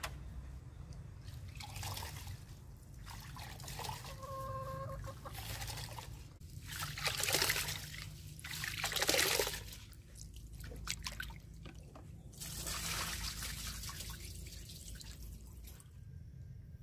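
Water sloshing and splashing in a metal bowl as hands rub and swish something in it, in a few louder surges. A hen clucks twice in the first few seconds.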